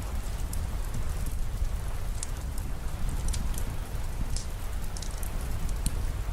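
Steady rain falling, with a low rumble beneath and many scattered sharp ticks of drops.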